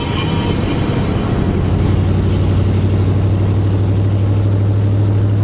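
Car engine and road noise heard from inside the cabin while cruising, a loud, steady low drone. Music fades out in the first second or two.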